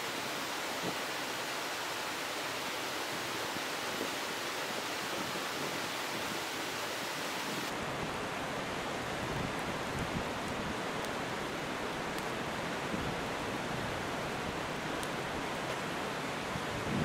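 Wood campfire burning, with a few sharp crackles and pops, over a steady rushing noise that changes tone about eight seconds in.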